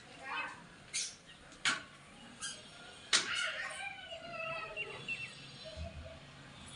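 Four sharp knocks, roughly a second apart, then a bird call whose pitch rises and falls for about two seconds, starting about three seconds in.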